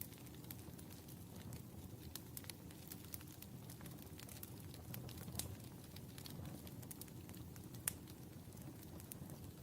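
Wood fire burning in a fireplace: a steady low rumble of the flames with scattered, irregular crackles and pops, one sharper pop near the end.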